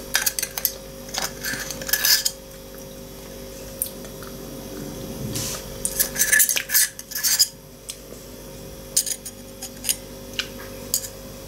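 A metal spoon scraping and clinking against a pot and a mesh sieve while thick cooked bean paste is scooped and worked through. The clinks come in clusters near the start, around the middle and again near the end.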